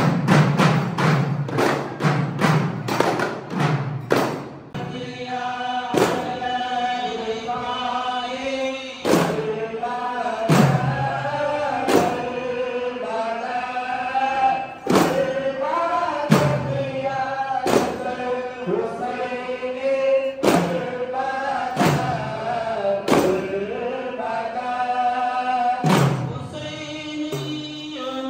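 Frame drums beaten fast and evenly for the first four seconds or so, then men chanting a devotional dhikr song, marked by single drum strokes every second or two.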